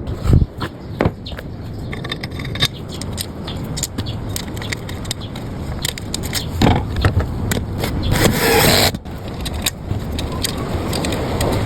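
Cardboard packaging and parts being handled during the unboxing of a bench circular saw: a string of knocks, clicks and scrapes. Two longer rustling bursts come about seven and eight and a half seconds in, over a low steady rumble.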